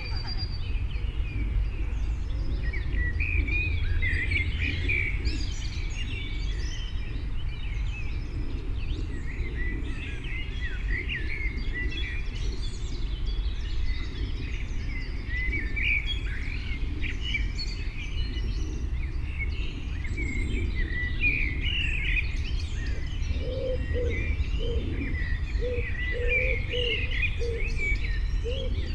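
Several small birds chirping and twittering in quick, overlapping phrases over a steady low outdoor rumble. Near the end a lower bird note starts repeating about twice a second.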